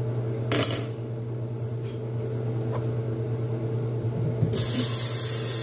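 Kitchen tap turned on about four and a half seconds in, water running into a steel sink with a steady hiss. Under it a steady appliance hum, and a single clink about half a second in.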